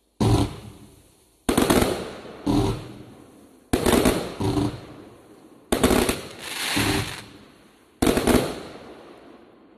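A 100-shot fireworks cake firing: about nine sharp bangs, roughly one every second, as shells burst overhead, each report trailing off into fading crackle.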